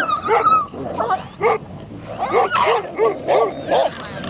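Tajik shepherd dogs (Central Asian shepherd dogs) fighting, barking and yelping in short sharp calls, with a quick run of about five in the second half.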